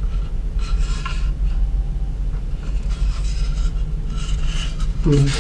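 A steady low hum, with faint rubbing and handling noise from a moabi-wood knife stand being turned over in the hands.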